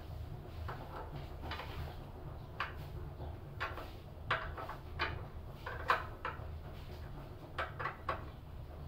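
Wrench turning the engine-mount bolts on a tofu grinder's frame, giving irregular short metallic clicks and clinks over a low steady hum. The bolts are being tightened to hold the engine with its V-belt set to the proper tension.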